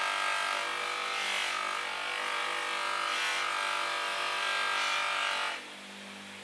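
Holzmann bench polishing machine running with a steady motor hum while a chestnut-wood hammer handle is pressed against its spinning cloth buffing wheel, making a loud rubbing hiss. About five and a half seconds in, the handle comes off the wheel and the rubbing stops, leaving only the motor hum.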